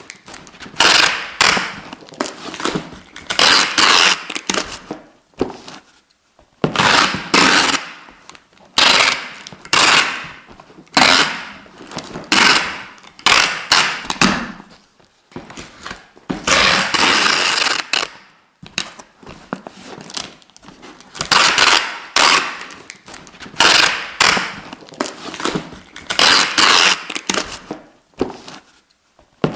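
Adhesive tape being pulled off the roll again and again in quick crackling rasps, each about a second long, with one longer pull of about two seconds partway through.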